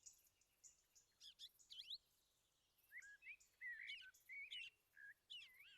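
Birds chirping faintly: short whistled calls with quick rising and falling notes, in a cluster about a second in and again through the second half.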